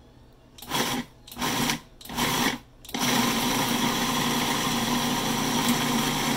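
11-cup electric food processor pulsed three times in short bursts, then run continuously with a steady motor hum, blending an oat, cheddar and bacon mixture with an egg into a dough.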